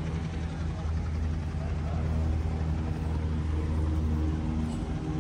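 A motor running steadily with a low, even hum, fading slightly near the end, with faint chatter of people in the background.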